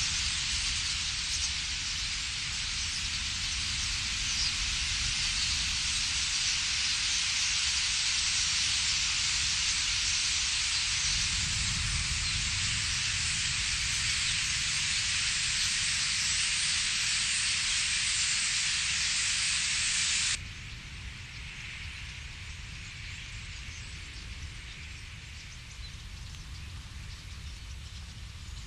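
A huge flock of common starlings massing at its reedbed roost: a dense, even hissing din over a low wind rumble. About twenty seconds in it cuts abruptly to a quieter, more distant version of the same.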